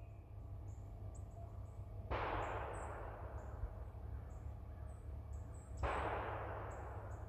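Two gunshots from elsewhere on the rifle range, about three and a half seconds apart. Each is a sudden crack trailing off in a long echo that lasts a second or more.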